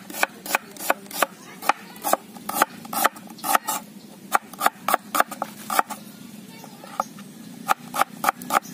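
A knife cutting ingredients on a cutting board: a run of sharp chops, about two to three a second, that stop for a second or two past the middle and then resume in quicker succession near the end.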